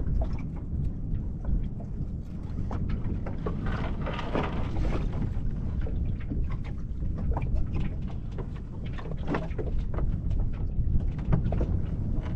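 Wind rumbling on the microphone while water laps and slaps against a small sailing dinghy's hull, with many short splashes and knocks and a busier patch about four seconds in.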